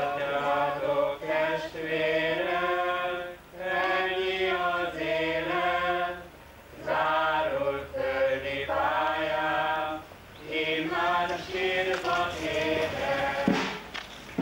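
A group of voices singing a slow funeral hymn together, in long held phrases with short breaks between them.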